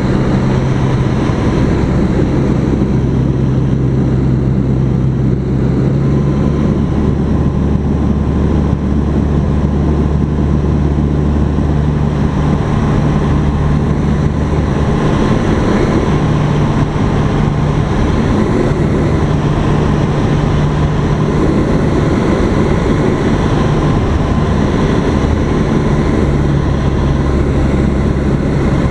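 Light single-engine airplane's piston engine and propeller droning steadily, heard inside the cabin. Its low tone shifts slightly a few times.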